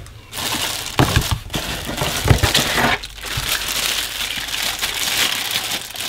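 Plastic packaging bags crinkling and rustling as wrapped parts are pulled out of a cardboard box, with a few knocks about a second and two seconds in.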